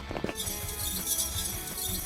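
Background music, with a bright high shimmer coming in about half a second in.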